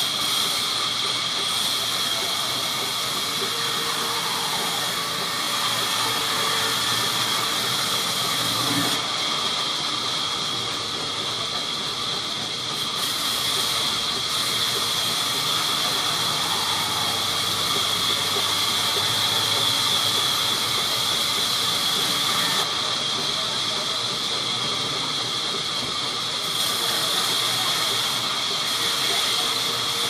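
Vertical sawmill band saw ripping lengthwise through a large squared log: a steady, high-pitched hissing whine of the blade cutting wood.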